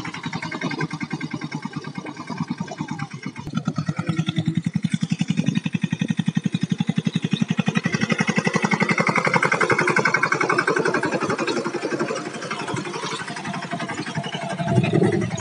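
Mahindra mini tractor's engine running under load as it pulls a spring-tine cultivator through the soil, with a rapid, even beat.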